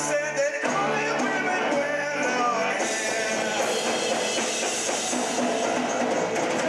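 Live rock band playing: strummed acoustic guitar and electric guitars over a drum kit. The sound gets brighter and fuller in the top end about three seconds in.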